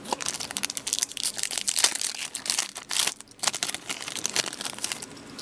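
Trading card packaging crinkling and crackling as cards are handled, a dense run of sharp rustles with a brief pause about three seconds in.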